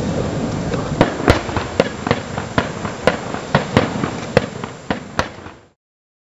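Fireworks going off: a dense rumble broken by a quick string of about a dozen sharp bangs and cracks, which cuts off suddenly near the end.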